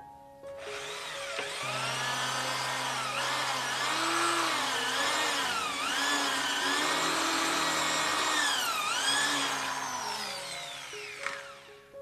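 A handheld electric power tool runs for about eleven seconds, its pitch dipping and recovering several times, then falling away as it winds down near the end.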